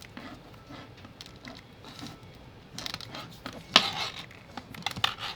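Handling noise of a braided USB-C cable and its right-angle connectors: quiet at first, then rustling and a run of small clicks from a little under three seconds in, with one sharp click just before four seconds.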